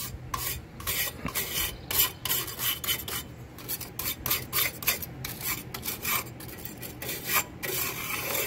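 Hand scrubbing of old brake parts: a rasping rub in uneven strokes, about three a second.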